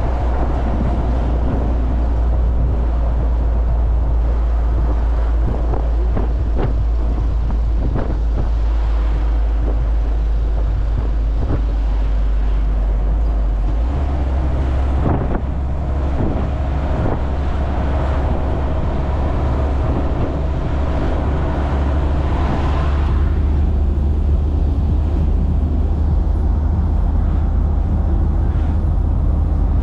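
Minibus (matatu) driving along a road, heard from inside: a steady low engine and road rumble with tyre noise, the low rumble shifting in pitch about halfway through.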